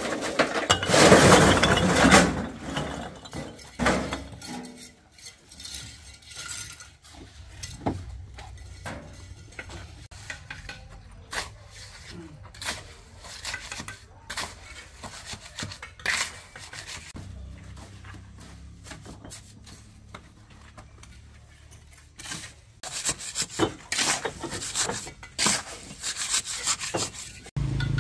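Irregular knocks and clattering of hard objects, with two louder, busier stretches of clatter, one near the start and one near the end.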